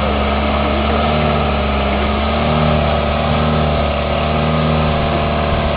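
Toyota Land Cruiser's engine running steadily at low revs as the 4x4 crawls nose-down through a deep mud rut.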